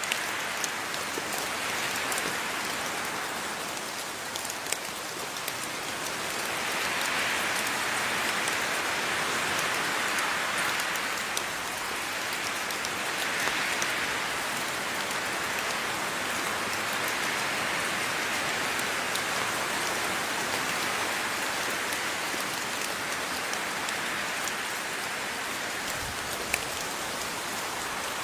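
Steady rain, a dense hiss that swells and eases every few seconds, with scattered drops ticking on a surface and one sharper drop near the end.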